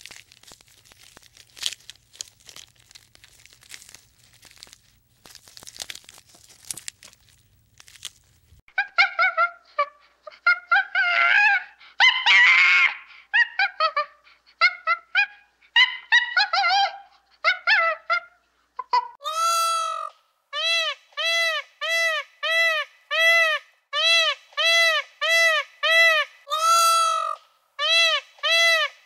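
Goose honking. It starts after several seconds of faint crackling: a few overlapping, uneven honks come first, then a steady run of loud, repeated honks, nearly two a second.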